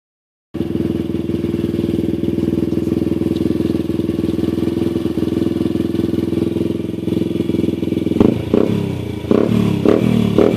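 2003 Honda TRX 90's small single-cylinder four-stroke engine idling steadily through a Big Gun Evo Mini aftermarket full exhaust, then revved in a series of short throttle blips from about eight seconds in.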